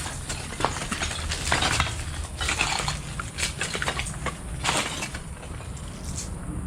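Footsteps walking, with irregular knocks and scrapes, over a steady low hum.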